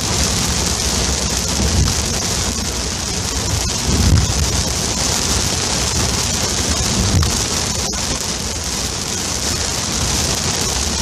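Heavy rain hitting a moving car's windshield and roof, heard from inside the cabin as a steady hiss. There are a few dull low thumps, about two, four and seven seconds in.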